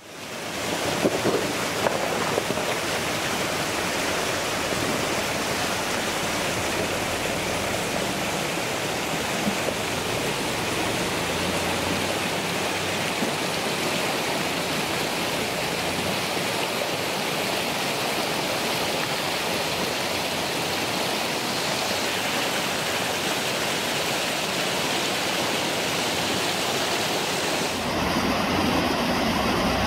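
Rushing creek water tumbling over rocks: a steady noise that fades in at the start. Near the end the sound changes and a lower rumble joins in.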